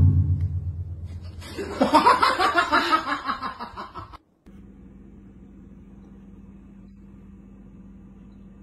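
A low boom dies away, then a person laughs hard in quick pulses for about two and a half seconds. After a sudden cut, a faint steady low hum.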